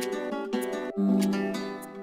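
Intro music of strummed acoustic guitar chords, each struck sharply and left to ring and fade, with a new chord struck about a second in.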